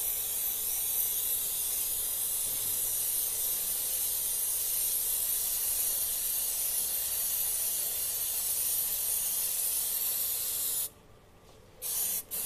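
Aerosol chain cleaner sprayed onto a motorcycle drive chain: one long, steady hiss of about eleven seconds that cuts off sharply, then a short second spray near the end.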